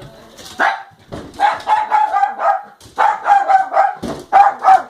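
Dog barking over and over in drawn-out, pitched barks that come in three runs, agitated at a door being closed.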